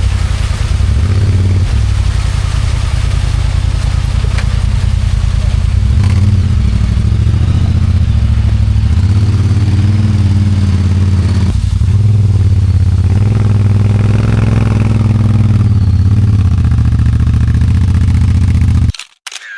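Side-by-side UTV engine running on a trail, its pitch and level rising and falling with the throttle. The sound cuts out abruptly near the end.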